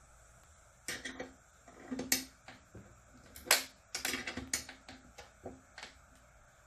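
Irregular metallic clicks and clinks from handling a wrench and a metal end clamp against a solar panel's aluminium frame. The clinks come in clusters, the sharpest about three and a half seconds in.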